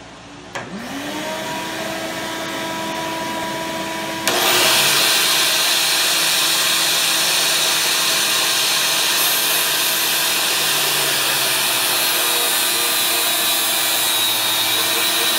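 An angle grinder and a shop vacuum start one after the other, about half a second and about four seconds in, the first spinning up to a steady whine and the second adding a loud, steady rush, and both run on. Toward the end the flap disc grinds the edge of a steel lawn mower blade, throwing sparks.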